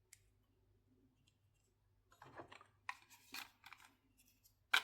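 Near silence for about two seconds, then soft handling rustles and several small plastic clicks, the sharpest near the end, from a clip-on wireless microphone and its spring clip being handled.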